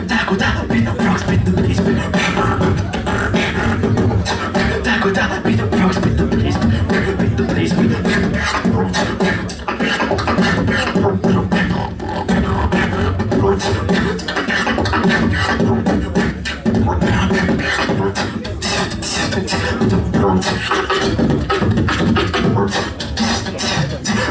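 Solo human beatbox performance through a microphone and the hall's PA: a continuous run of sharp vocal drum hits, kicks and snares, over a deep, sustained vocal bass line.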